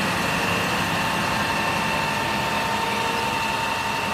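Isuzu FVZ water tanker truck running its pump to feed the roof water cannon: a steady engine hum under the rushing hiss of the water jet, with a constant high whine.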